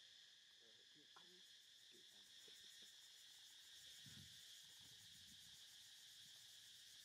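Faint, steady chorus of insects such as crickets: an even high buzz with no breaks.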